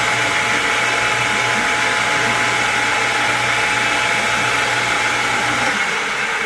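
Electric motor running steadily with a constant hum and whine, switched off near the end and winding down.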